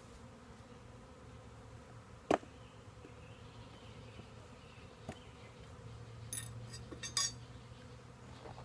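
Honeybees buzzing steadily around an open hive and nuc box. A sharp knock comes about two seconds in, a lighter one around five seconds, and a quick run of clicks near seven seconds as the wooden frames and nuc box are handled.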